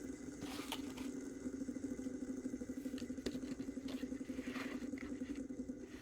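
Fidget spinner spinning, giving a steady low whir, with a few light clicks from handling.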